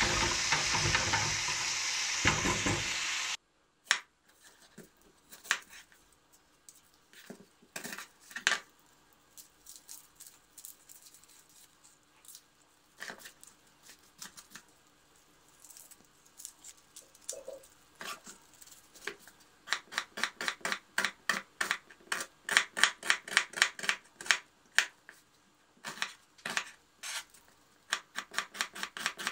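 Beef strips sizzling in a nonstick frying pan while a silicone spatula stirs them, cutting off suddenly a few seconds in. Then scattered knocks and rustles as an onion is peeled and cut on a plastic cutting board, and from about two-thirds of the way through, a chef's knife chopping the onion quickly, several strokes a second.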